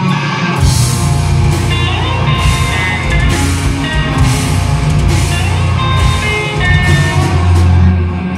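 Live rock band playing loud: distorted electric guitars, bass guitar and a drum kit, with cymbal crashes about once a second.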